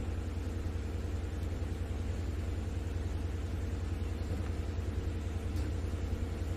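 Steady low hum with faint, even background noise and no speech.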